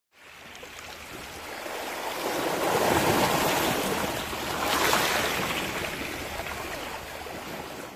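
Small sea waves washing in over a pebble shore, swelling about three seconds in and again about five seconds in, then easing off.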